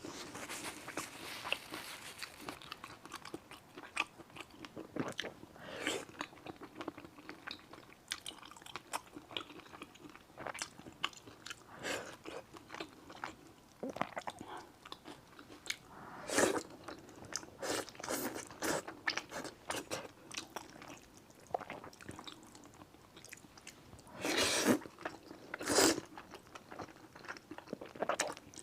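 Close-up mouth sounds of a person eating thick sweet potato starch noodles in sesame paste: irregular chewing and biting smacks, louder in clusters about 16 seconds in and again around 24 to 26 seconds.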